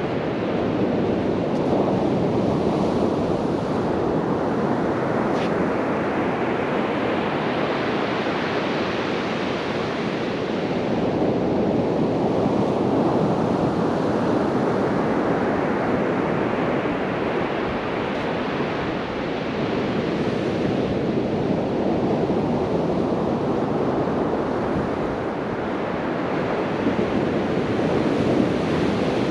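Sea surf breaking and washing up the beach, a steady rush that swells and eases every several seconds.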